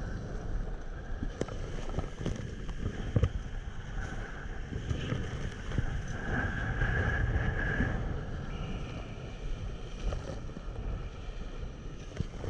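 Wind buffeting the microphone and water rushing past the hulls of a Hobie Cat 16 catamaran sailing fast, around 20 mph. A few sharp knocks, the loudest about three seconds in, come as the hull meets the chop, and a higher hiss swells for a couple of seconds about midway.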